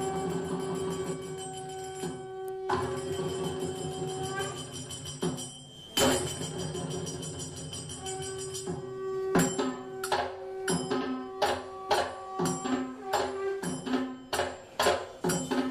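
Background music: held notes at first, then from about nine seconds in a steady percussive beat of about two strikes a second.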